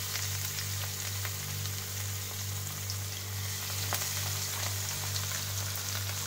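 Spice-coated catla fish steaks sizzling and crackling in hot shallow oil in a frying pan, just laid into the oil, with a second steak added partway through. A steady low hum runs underneath.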